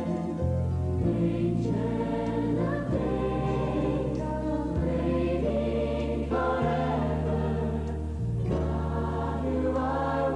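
A choir singing a slow song with accompaniment, over held bass notes that change every second or two.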